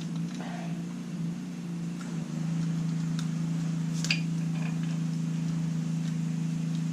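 A steady low hum that steps up a little in level about two seconds in. A few light metallic clicks sound over it, the clearest about four seconds in, as small brake parts and tools are handled.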